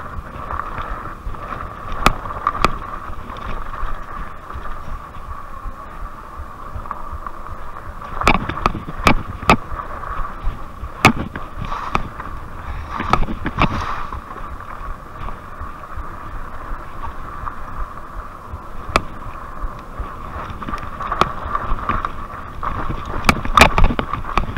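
Fat-tire e-bike ridden over a bumpy dirt trail: a steady rumble of tyres and wind on the microphone under a high steady whine, broken by sharp knocks and rattles as the bike hits bumps. The knocks come in clusters about a third of the way in and again near the end, where they are loudest.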